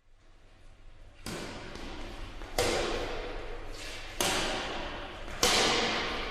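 Badminton rackets striking a shuttlecock in a rally: four sharp hits about every one and a half seconds, each echoing in a large hall, over a steady low hall rumble.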